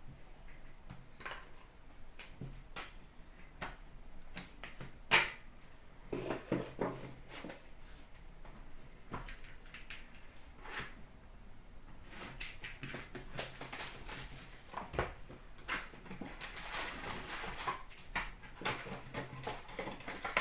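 Hockey card boxes, packs and cards being handled: scattered light clicks and taps of cardboard and cards, then from about halfway a longer stretch of crinkly rustling as pack wrappers are opened.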